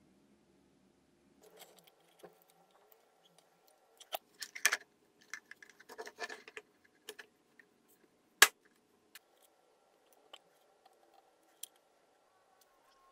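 Small hard objects being handled: an irregular run of clicks and knocks, with one sharp, loud click about eight seconds in.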